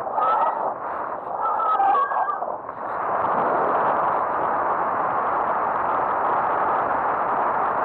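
Model aircraft's motor and propeller running, with wind rushing over the onboard camera's microphone. In the first couple of seconds the pitch wavers, then the sound dips briefly and settles into a steady hum.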